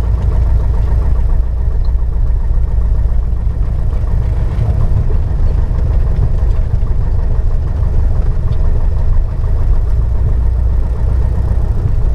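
Piper PA-28-161 Warrior's four-cylinder Lycoming engine and propeller running steadily at low taxi power, heard from inside the cabin as a loud, even low drone.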